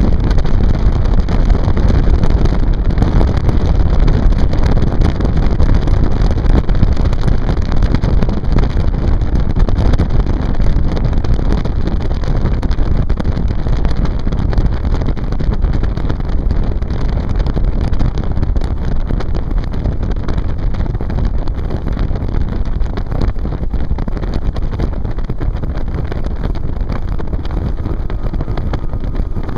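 Motorboat running underway with wind buffeting the microphone: a loud, steady rush heavy in the low end, easing slightly near the end.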